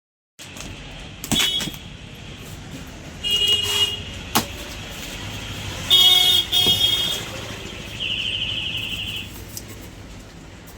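Short vehicle horn toots, several times, one of them a fast-warbling horn held for about a second near the end, over a low steady traffic rumble, with a sharp knock midway.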